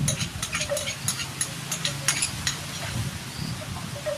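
Stir-frying in a pan: a cooking utensil clicks and scrapes against the pan, a run of quick clicks in the first two and a half seconds, over a faint sizzle.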